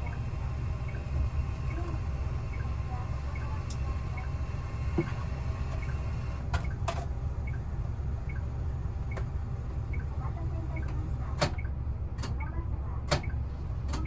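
Bus interior with the engine idling as a steady low rumble while the coach stands at a stop. A direction indicator ticks evenly, about two ticks a second, and several sharp clicks and knocks come in the second half.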